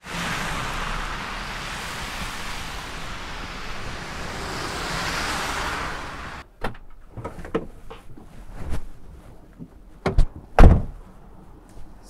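Road traffic: a steady hiss of passing cars that cuts off abruptly about six and a half seconds in. Scattered knocks and clunks follow, with two heavy thumps near the end.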